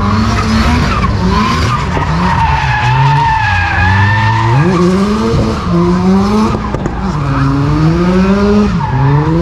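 Drift car sliding through a tyre-smoke display, its engine revving up and down repeatedly at high revs while its tyres squeal.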